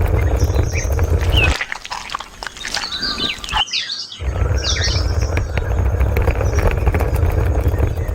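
Birds chirping over a steady low rumble; the rumble drops out about a second and a half in and comes back at about four seconds.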